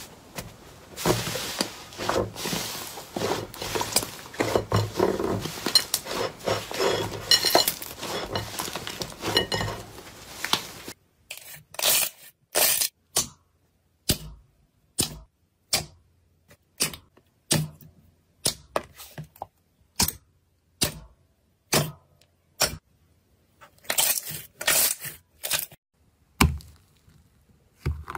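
Slime being squeezed and pressed by hand: a dense run of crackling and popping for about ten seconds. Then it cuts to a series of separate short crunches with silence between them.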